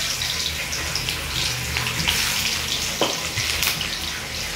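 Onions sizzling and crackling in hot oil in a kadhai, just dropped in, with a single click about three seconds in.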